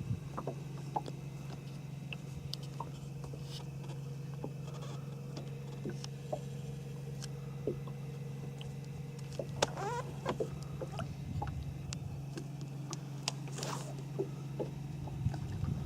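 A small boat's motor humming steadily, with scattered light clicks and knocks from gear being handled on board. A short wavering squeak comes about ten seconds in.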